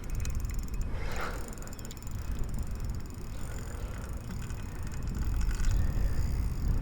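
Fishing reel ticking as a big fish pulls against the line, over a low rumble of wind and water. There is a brief louder burst of ticking late on.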